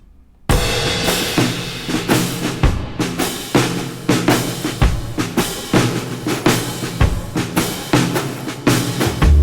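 Background music with a drum-kit beat of bass drum and snare, starting abruptly about half a second in.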